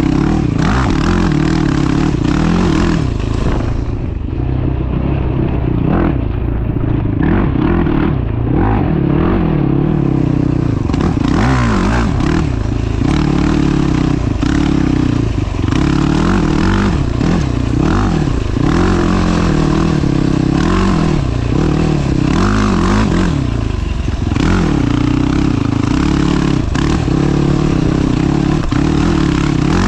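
Carbureted Yamaha YFZ450 quad's single-cylinder four-stroke engine under way on a dirt trail, revving up and down again and again with the throttle. Occasional knocks and rattles come through over the engine.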